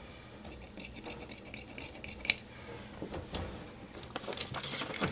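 Large tailor's shears cutting through suit-trouser fabric on a cutting table: soft snipping with scattered sharp clicks of the blades and handles, a louder click a little past two seconds and a cluster of clicks near the end.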